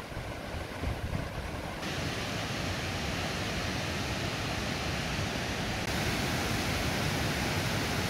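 Steady rush of water from the Mae Ya waterfall, a large cascade, growing louder and brighter about two seconds in.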